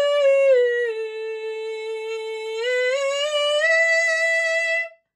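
A woman sings a vocal-exercise demonstration on one unbroken tone. It starts high, slides down and holds, then climbs back up to the starting note and stops abruptly just before the end. It is a head-voice-down, chest-voice-up blending exercise, purposely not pretty.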